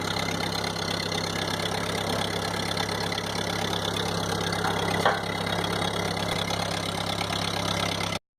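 Ford 8N tractor's four-cylinder flathead gasoline engine idling steadily, with one brief click about five seconds in. The sound cuts off suddenly near the end.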